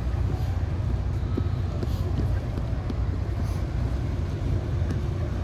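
Low, steady rumble of a motor yacht's engines as it passes slowly across the harbour, with faint voices of people nearby.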